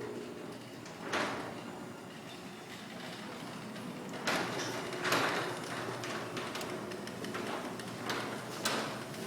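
A sectional steel garage door travelling on its LiftMaster 3800 jackshaft opener: a faint steady operator hum with a few sharp clunks, about a second in, around four and five seconds in, and twice near the end.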